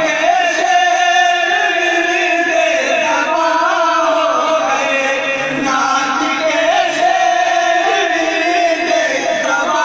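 A group of men singing an Islamic devotional hymn together in unison into microphones, in long, drawn-out, wavering notes.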